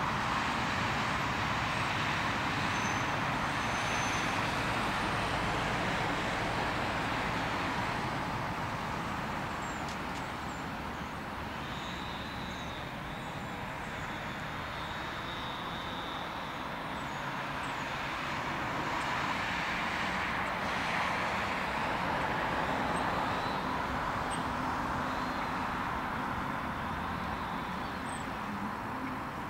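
Steady road traffic noise from passing vehicles, with no distinct single event.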